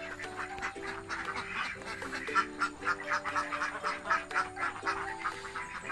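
Flock of domestic laying ducks quacking and chattering in quick, overlapping calls, over background music with a simple stepping melody.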